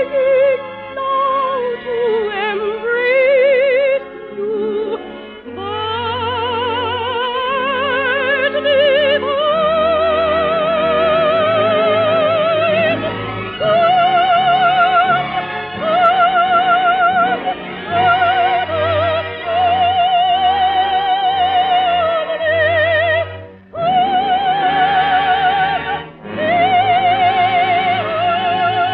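Operatic soprano singing with an orchestra: long, high held notes with wide vibrato, and two brief breaks between phrases near the end. The sound is narrow-band, like an early-1950s radio broadcast recording.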